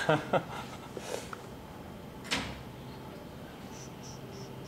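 A single sharp knock about two seconds in, over a steady low room hum, then a run of small high ticks, about three a second, near the end.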